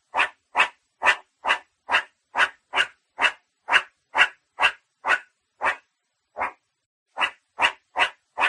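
Meerkat giving a rapid series of short, sharp barks, about two a second, with a brief gap a little past the middle before they resume.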